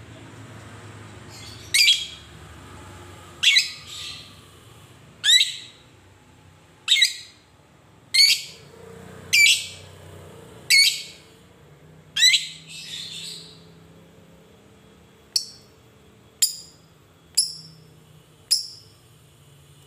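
Fischer's lovebird giving sharp, shrill single calls, about one every second and a half, then shorter, quicker ones near the end.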